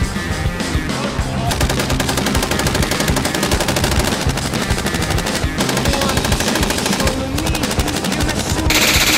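Belt-fed machine gun firing long bursts of rapid shots, the longest starting about a second and a half in and lasting some four seconds, then a short break and more bursts. Music plays underneath.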